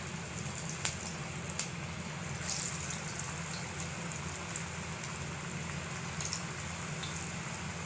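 Tapioca vadai patties deep-frying in hot oil in a kadai, a steady crackling sizzle with a couple of sharp pops in the first two seconds.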